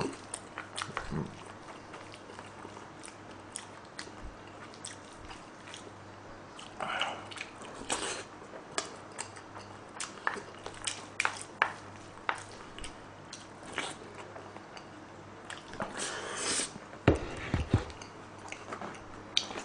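Close-up eating sounds: a person chewing and biting food, with many short clicks and scrapes of a spoon against a plate. Near the end there is a louder cluster of eating noise.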